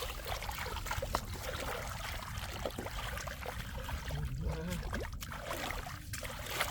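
Shallow floodwater trickling steadily, with many small splashes.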